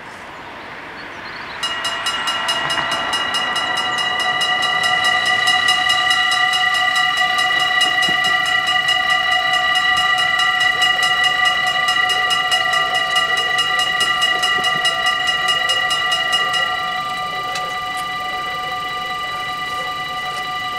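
Dutch level-crossing warning bells start about two seconds in and ring fast and steadily as the red lights flash and the barriers come down. About 17 seconds in the ringing gets quieter and thinner, and a steadier ring carries on.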